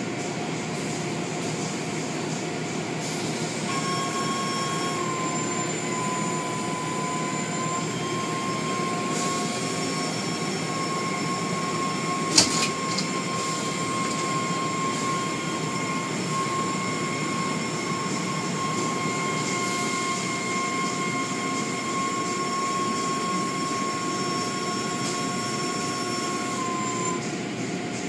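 Car wash machinery running: a steady rushing noise with a whine that comes in a few seconds in and holds almost to the end, and one sharp knock about twelve seconds in.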